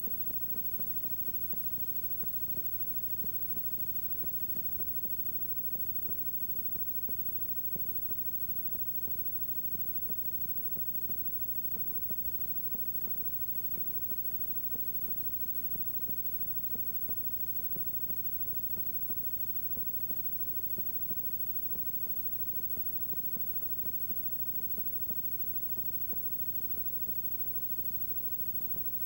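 Playback noise from a blank stretch of analog videotape: a steady electrical hum with even hiss above it and faint scattered ticks, with no recorded sound on the tape.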